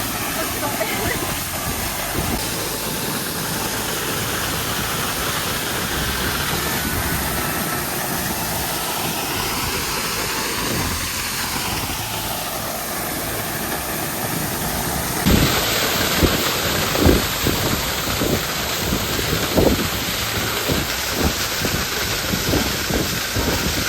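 A hot-spring waterfall pouring, a steady rush of water close to the microphone. About fifteen seconds in, the sound changes abruptly and irregular thumps come through the rush.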